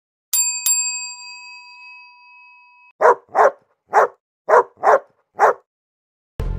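Two quick bell-like dings that ring on for a couple of seconds, then a dog barking six times in quick succession. Music starts right at the end.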